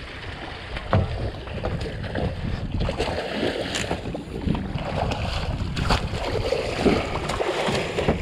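Wind and water noise aboard a small open fishing boat, with a few sharp knocks and clatter on deck.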